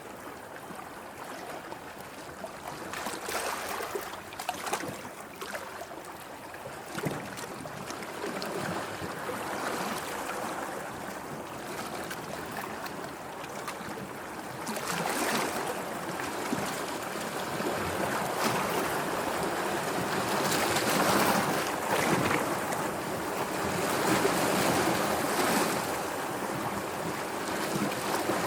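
Sea waves washing and breaking in a continuous surge that swells and ebbs, louder and fuller from about halfway through, with a few sharper splashes in the first several seconds.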